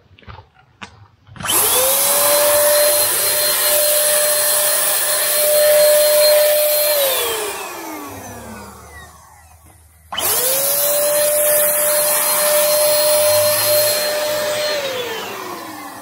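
Handheld electric paint spray gun spraying sunflower oil onto a mower as a protective film for winter. A few light clicks come first. Then the motor starts with a rising whine, runs steadily for about five seconds, and winds down with a falling whine when switched off. This happens twice.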